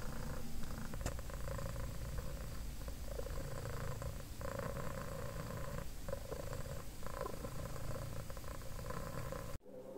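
A long-haired ginger cat purring steadily, swelling and easing in stretches of a second or two as it breathes. The purring cuts off suddenly just before the end.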